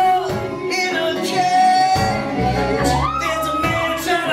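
Live band playing with a singer's held, wavering melody line over it, without clear words.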